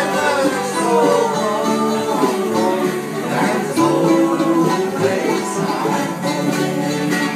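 Acoustic bluegrass band playing: bowed fiddle and strummed acoustic guitar over low bass notes, with a singing voice.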